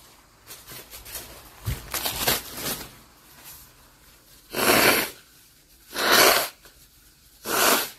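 A woman blowing her nose hard into a tissue three times, each blow about half a second long, clearing a nose congested by allergic rhinitis. Softer rustling and breathing noises come before the first blow.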